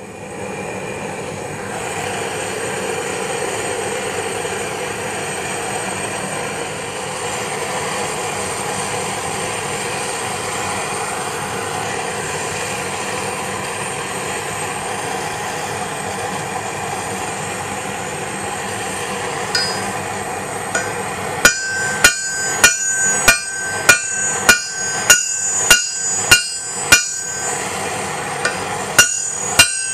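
A steady rushing noise for about twenty seconds. Then a hammer strikes hot rebar on an anvil: about ten ringing blows at a little under two a second, a short pause, and two more near the end. This is the steel being drawn down into longer, narrower tong handles.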